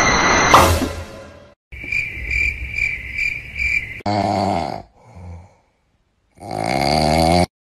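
A Philips pop-up toaster pops with a sudden loud clack. Then a sleeping cat's breathing: a run of high squeaky chirps about two to three a second, followed by two long snores.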